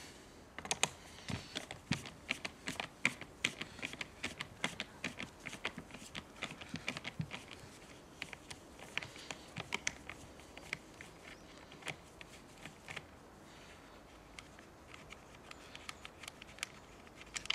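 Many small, irregular metallic clicks and rattles of a wrench working loose the two nuts holding the carburettor cover on a Stihl chainsaw, thickest in the first half and sparser toward the end.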